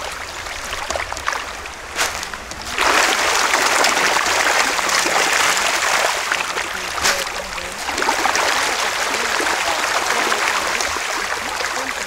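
River water flowing steadily, a continuous rushing noise that grows louder about three seconds in, with two brief sharp clicks.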